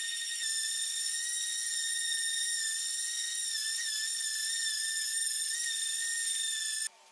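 Random orbital sander running on a painted walnut board, a steady high-pitched whine that wavers slightly partway through and cuts off abruptly near the end.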